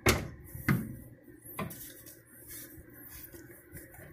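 Metal clunks and rattles of a new CV axle's splined end being twisted and wiggled into place on a 2008 Ford Fusion: three sharp knocks in the first second and a half, then quieter clicking.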